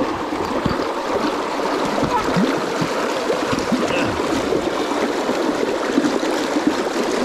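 River water rushing and gurgling through a set of rapids, a steady churning wash.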